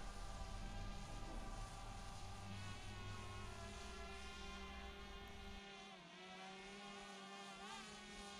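DJI Mavic Air quadcopter's propellers buzzing in flight. The whine holds a steady pitch and then dips and wobbles near the end as the drone manoeuvres. A low rumble runs under it until about five and a half seconds in.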